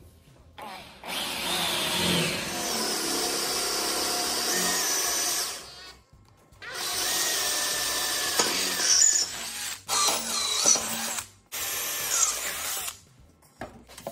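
Cordless drill boring through a steel plate, the motor running under load as the bit cuts. There are two long runs, and the second one stops and restarts briefly a few times.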